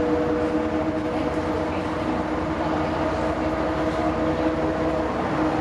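Cabin sound of a 1987 Ikarus 280.27 articulated bus under way: the diesel engine and drivetrain running steadily with a low rumble and a steady whine of several held tones.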